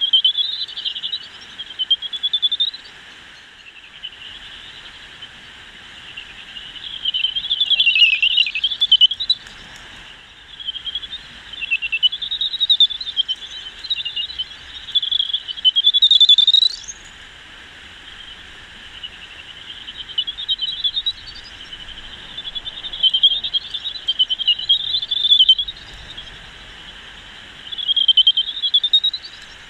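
Greater horseshoe bats' echolocation calls made audible by a bat detector: warbling, whistle-like tones in repeated bursts of a few seconds as bats pass, with a steady hiss between them.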